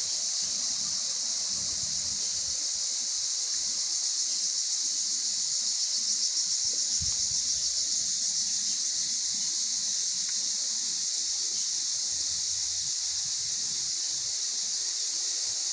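Insects droning outdoors: a steady high-pitched buzz that holds unchanged throughout.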